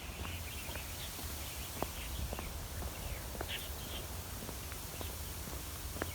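Footsteps walking at an irregular pace, with many short, high bird chirps throughout and a steady low rumble underneath.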